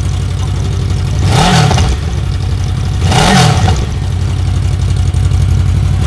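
Honda CB650R's inline-four engine idling, blipped twice: the revs rise and fall quickly about a second and a half in and again a little over three seconds in.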